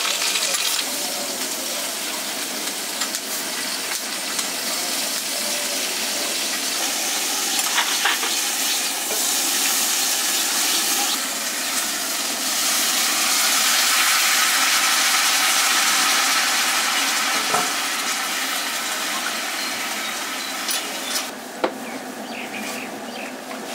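Food frying in a pan, a steady sizzle as it is stirred, with a few sharp clicks of a utensil.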